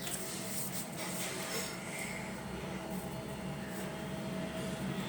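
Pencil strokes scratching on paper in short, uneven bursts, over a steady background hum.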